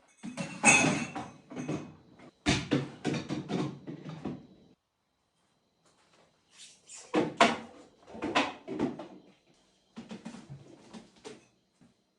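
Household items handled and set down, with knocks and clatters like a fridge or cupboard door or drawer being worked, in four bursts separated by silent gaps.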